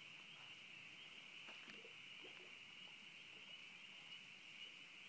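Faint, steady high-pitched chorus of calling animals, with a few faint soft ticks about a second and a half in.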